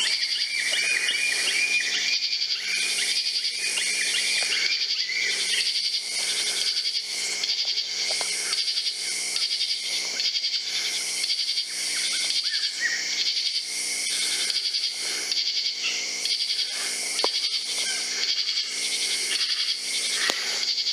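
A chorus of night-singing insects: a steady high trill that swells and fades about three times every two seconds.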